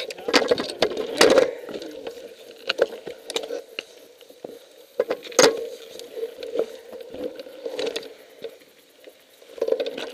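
Mountain bikes and footsteps on a rocky trail: scattered knocks, clicks and rattles, the loudest about halfway through, over a faint steady hum.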